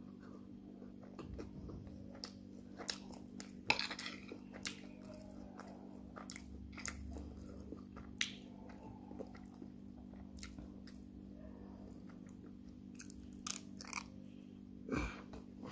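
A person eating jollof rice with a spoon, heard close up: chewing and lip smacking, with many irregular sharp clicks, over a steady low hum.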